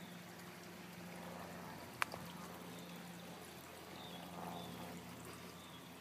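Faint, steady rush of a waterfall pouring into a pool below, with one sharp click about two seconds in.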